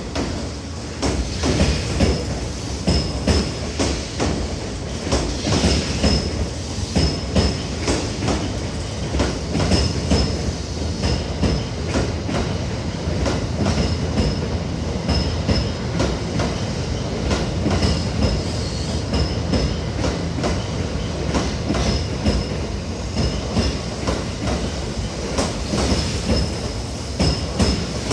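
E001 Shiki-shima train rolling out, its wheels clacking over rail joints and points, with short high wheel squeals coming and going over a steady rumble.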